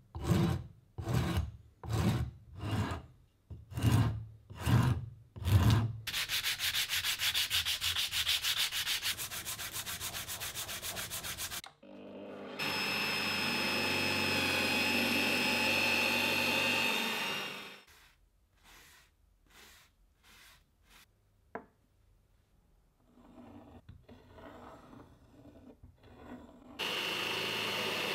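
A hand rasp pushed across a hardwood block in a vise in about seven strokes, a little under one a second, followed by several seconds of steady, fine, rapid rasping. About halfway through, a drill press bit bores into the hardwood with a steady whine for about five seconds. A few faint scrapes follow, and a steady machine noise starts again near the end.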